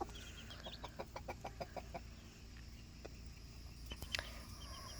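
Faint hen clucking in a quick run of short notes, with newly hatched chicks peeping in short high chirps.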